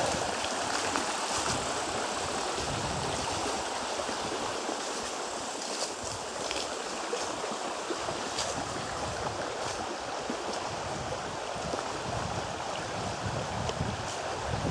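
Small stream running over stones beside the path, a steady rush of water, with a few faint light clicks now and then.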